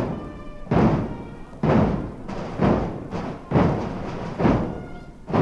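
Swiss carnival Katzenmusik marching band playing a march: a heavy bass drum strikes steadily, about once every 0.9 seconds, with a few faint held higher notes between the beats.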